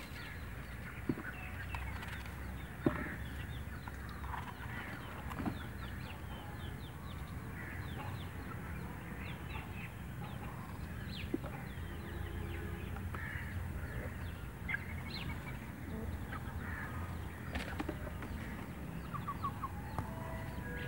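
A large knife shaving the skin off a bottle gourd in soft scraping strokes, with a sharp click about one second in and another about three seconds in. Birds chirp throughout over a steady low rumble.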